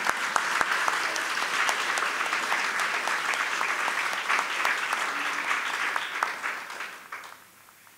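Audience applauding, a dense patter of clapping that fades out about seven seconds in.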